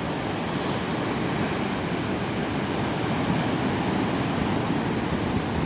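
Steady roar of large typhoon swell breaking onto the shore, a continuous rushing wash of surf.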